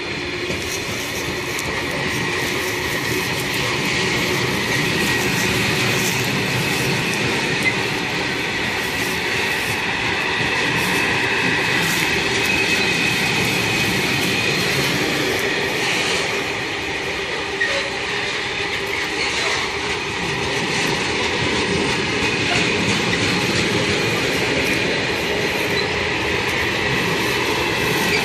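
Freight train of covered hopper wagons rolling past close by: a continuous rumble of wheels on rail, with a steady high ringing squeal from the wheels and a few faint clicks over the rail joints.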